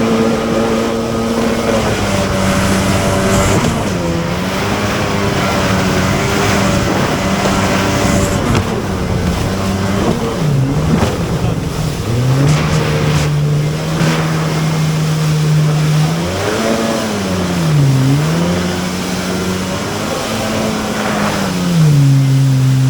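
Watercraft engine running at high revs, its pitch dropping and climbing back several times as the throttle is eased off and opened again.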